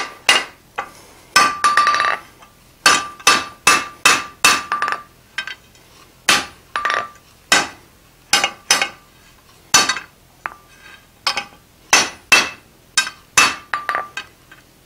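Hand hammer striking a red-hot steel bar on an anvil, a long series of blows about two to three a second in short runs with brief pauses, many of them with a short metallic ring. The smith is squaring up a forged 90-degree corner to make it sharper.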